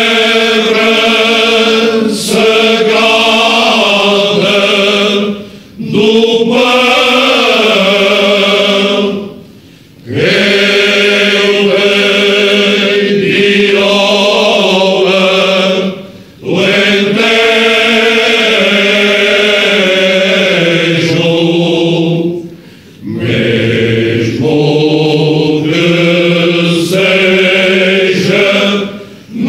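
Men's choir singing cante alentejano, the unaccompanied Portuguese folk part-singing: slow, sustained phrases in several voices, broken by short pauses for breath.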